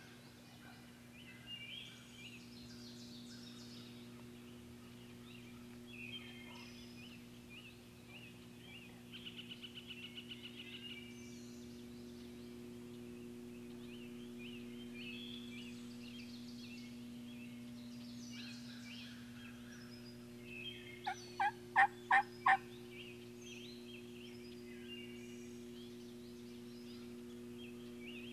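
A turkey yelping: five loud, evenly spaced yelps in quick succession, getting louder, about three quarters of the way through. Songbirds chirp and trill throughout.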